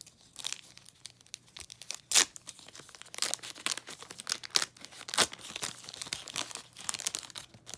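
Wax wrapper of a 1991-92 NBA Hoops basketball card pack being torn open and crinkled by hand, in a run of irregular rips and crackles, the loudest a little after two seconds in.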